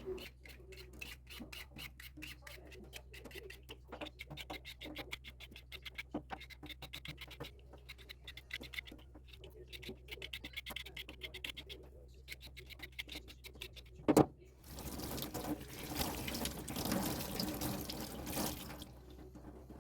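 A quick run of short scraping strokes as the skin is peeled off a papaya, then a sharp knock about 14 seconds in and a few seconds of running tap water near the end.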